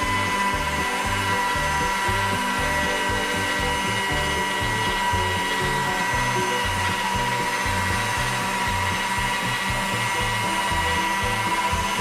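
Electric pasta machine's motor running with a steady whine as a sheet of egg pasta dough is rolled through its chrome rollers, over background music with a steady low beat.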